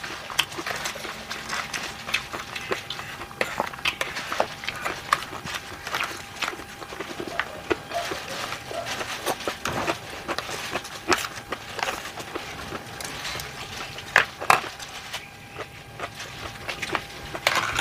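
Plastic fork and spoon clicking and scraping against a plastic takeout tray while scooping rice, mixed with chewing sounds. The clicks come irregularly throughout, with a couple of louder ones a little past the middle.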